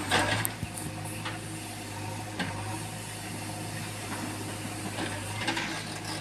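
JCB 3DX backhoe loader's diesel engine running steadily while the backhoe arm digs soil. A few short clanks and scrapes from the bucket and arm stand out, mostly in the first half-second and once about two and a half seconds in.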